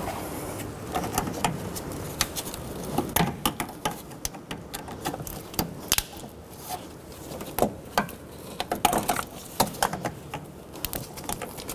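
Irregular light clicks and small rattles of needle-nose pliers working cable connector clips off a metal bracket, their tabs squeezed and the clips pulled free.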